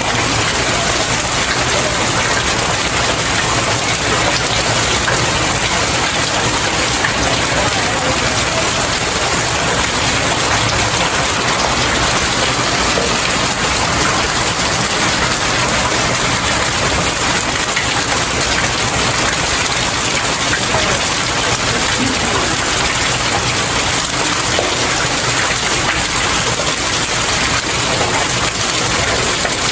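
Steady rain falling and splashing on stairs, an even rushing patter that does not change.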